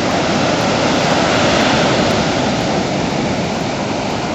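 Ocean surf: a steady wash of breaking waves that swells slightly and then eases.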